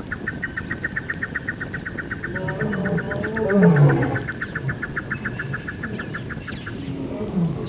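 African bush wildlife calling: a steady trill of rapid pulses, about ten a second, runs until near the end. Lower calls falling in pitch come in the middle and again near the end, with scattered high bird chirps.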